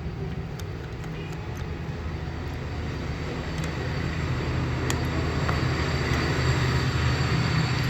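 A steady low mechanical rumble that slowly grows louder, like a motor vehicle running, with a few faint light clicks.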